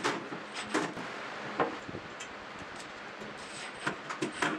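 A few short knocks and clicks of a cordless drill and hardware against a wooden cabinet door, three of them close together near the end, over a faint steady hum.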